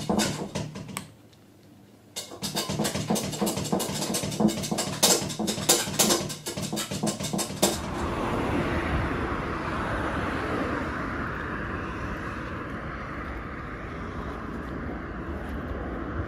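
Rapid clicking and scratching from a young kitten being bottle-fed on a paper pet pad, in two spells with a short pause between. About eight seconds in it gives way to steady outdoor wind and traffic noise.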